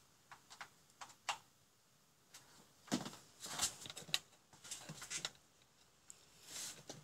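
Hands handling a small LED module and its wires on a workbench. A few light clicks come first, then scraping and rustling as the module and its leads are picked up and turned over.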